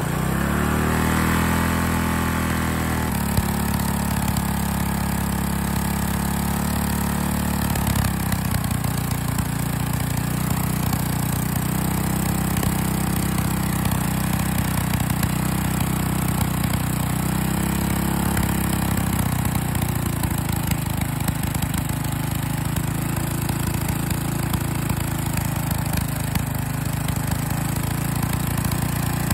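Tecumseh single-cylinder small engine running with its throttle opened up, revved to pull more air through the carburetor. Its note shifts in the first few seconds, then holds fairly steady with small rises and dips.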